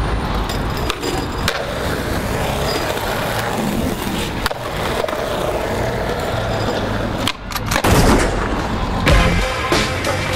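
Skateboard wheels rolling on a concrete skatepark surface, with sharp clacks and knocks of the board popping and landing.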